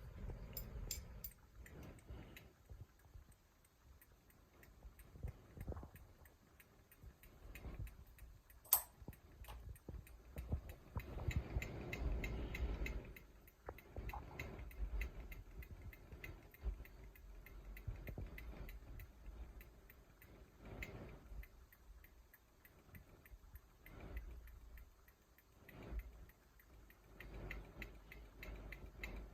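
Hampton Bay Huntington II ceiling fan running on high speed: a faint low rumble with swells of rushing air, and a light, regular ticking throughout. One sharper click about nine seconds in.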